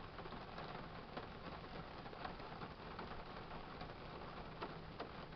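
Rain falling on a car's roof, heard from inside the cabin: a steady hiss with scattered light taps of drops.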